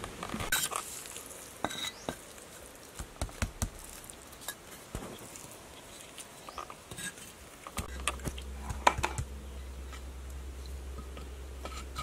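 Clay bricks being pressed and tapped into wet cement mortar by hand, with scattered light knocks, clicks and gritty scraping at irregular intervals.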